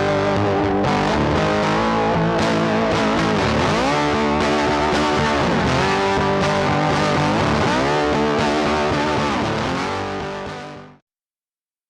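Background music led by guitar, fading out near the end into silence.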